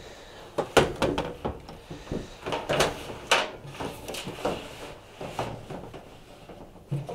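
Metal tumble dryer drum being worked out through the front of the cabinet: a run of irregular knocks, clunks and scrapes as it rubs and bumps against the sheet-metal casing.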